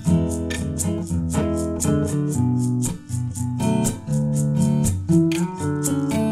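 Background music: guitar-driven track with a steady beat.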